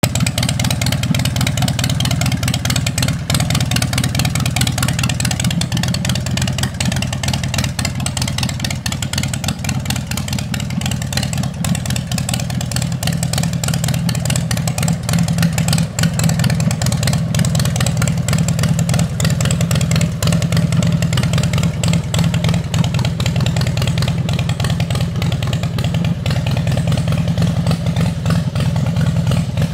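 Harley-Davidson Night Train's Twin Cam 88B V-twin idling steadily through heat-wrapped exhaust pipes, with a fast even run of firing pulses.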